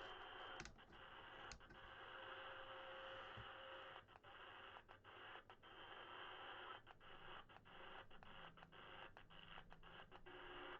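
Faint receiver hiss from a President George 2 CB radio on lower sideband, with no station coming through. Two sharp clicks sound in the first couple of seconds, and the hiss dips briefly again and again in the second half.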